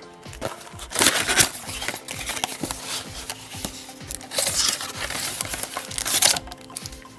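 Cardboard trading-card box (Panini Absolute Football) being opened by hand: the flaps and wrapping crinkle and rustle in irregular bursts, loudest about a second in and again near the end.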